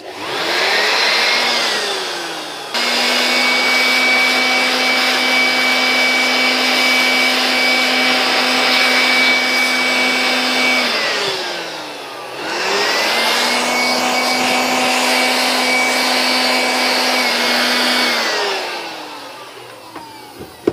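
Electric air blower run twice: the motor's whine rises as it spins up, then it runs steadily with a rushing blast of air, jumping louder about three seconds in. It winds down with a falling whine about eleven seconds in, starts again a second later, and winds down once more near the end, while blowing dust off a TV circuit board.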